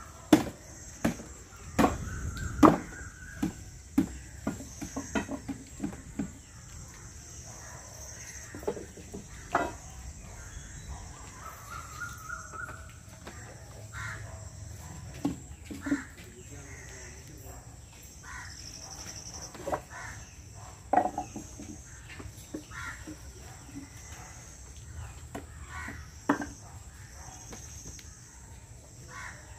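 Wooden knocks and clunks as the parts of a traditional wooden sesame oil press (chekku) are knocked loose and dismantled. They come thickest in the first few seconds, then more sparsely. Behind them, birds call and insects chirr on and off.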